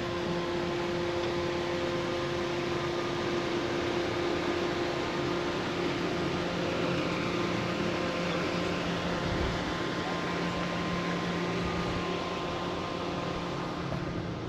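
Steady engine drone with several held tones, heard during a car ferry crossing.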